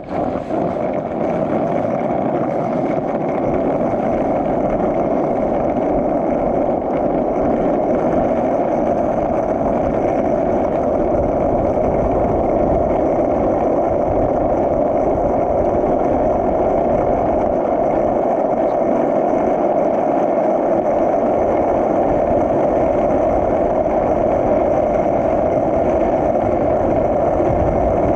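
Skateboard wheels rolling down a paved hill, a steady roar that builds over the first few seconds and then holds.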